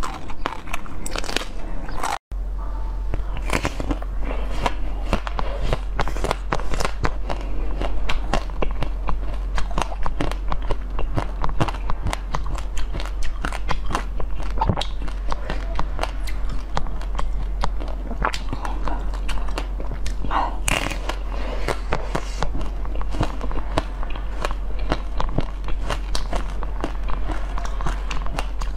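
Close-miked biting and crunching of a frozen ice cream bar's hard pink coating: a dense run of crisp cracks and crunches. A steady low hum sits underneath.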